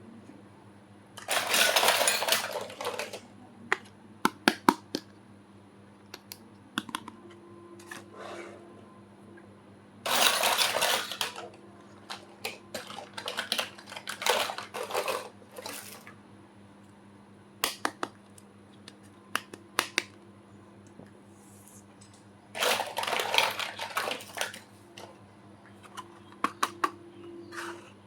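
A toy kitchen set being unboxed by hand: packaging rustles and crinkles in three longer bursts, with many light clicks and taps of small pieces being handled in between.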